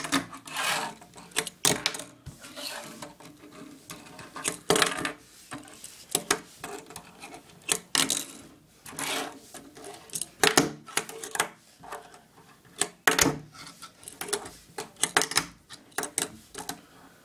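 A Tech Deck fingerboard worked by fingers on a wooden tabletop: the board clacking sharply against the wood in many irregular pops and landings, with short bits of its wheels rolling in between.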